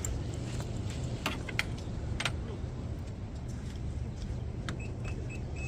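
Fishing gear clinking and rattling in a few sharp knocks over a steady low rumble of surf and wind, with a few short high chirps near the end.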